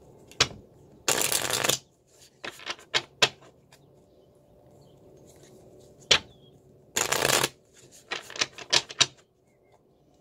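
A tarot deck being riffle-shuffled by hand, twice. Each shuffle opens with a sharp snap of the cards, then a quick flutter of cards riffling together, then a few short snaps as the halves are bridged and squared.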